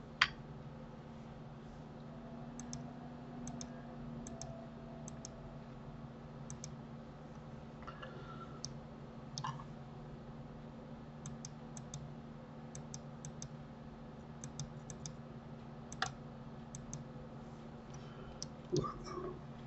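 Scattered computer mouse clicks and keyboard keypresses, with a sharper click just after the start, over a steady low hum.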